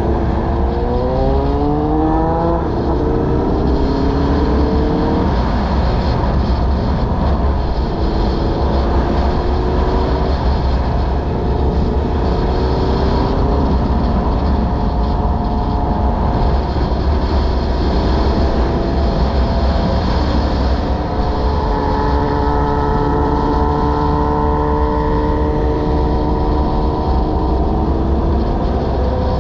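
Honda VFR800Fi V4 motorcycle engine heard from the rider's position, pulling up through the gears with a rising pitch and two upshifts in the first five seconds or so, then cruising at a steady pitch. Heavy wind rumble on the microphone runs under it.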